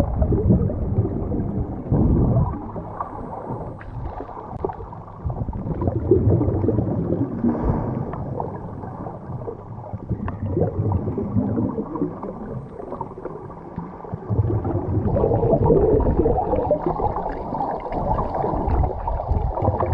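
Muffled underwater sound from a camera held under the water: uneven water sloshing and gurgling with a low steady hum, growing louder about two-thirds of the way through.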